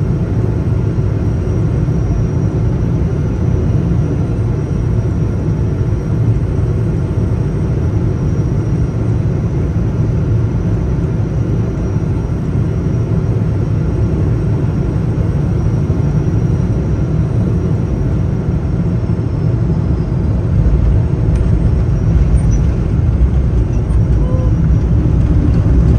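Boeing 777 jet noise: a steady deep rumble of engines and rushing air with a faint high whine above it, growing a little louder in the last few seconds.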